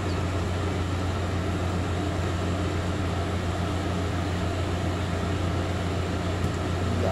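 A machine running with a steady low hum.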